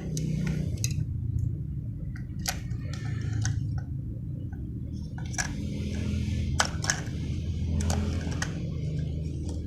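Batteries being fitted into a plastic toy helicopter's battery compartment: scattered clicks and taps of batteries and plastic being handled, over a low rumble of handling noise.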